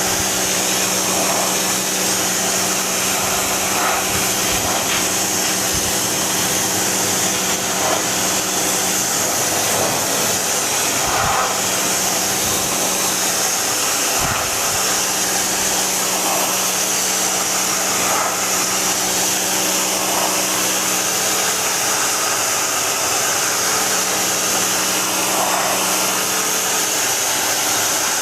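Steady electric motor running with a loud, even rushing hiss over a low hum, with a few brief swells now and then.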